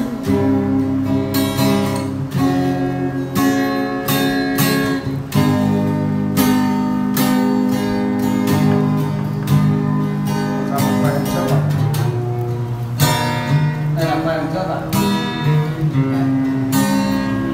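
Acoustic guitar strummed through a chord progression, with regular strokes and ringing chords that change every second or two.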